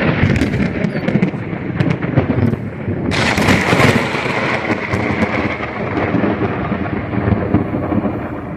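Thunder from a very close lightning strike: a long, loud rumble with a sharper crack about three seconds in.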